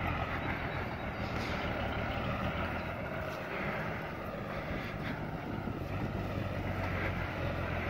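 Mercedes-Benz Unimog truck's engine running steadily as the truck pulls slowly away.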